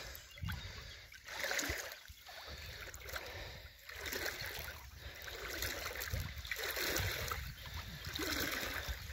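Shallow water sloshing and lapping in uneven surges as a large sturgeon swims off through the shallows, with wind rumbling on the phone's microphone.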